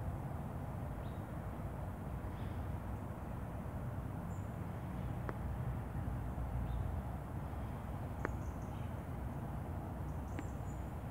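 Outdoor background: a steady low rumble, with a few faint, short, high bird chirps and three small sharp clicks about five, eight and ten seconds in.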